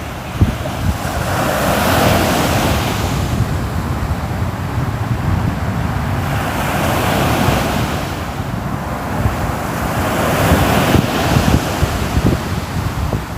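Ocean surf: waves breaking and washing in, swelling and fading three times, with wind rumbling on the microphone.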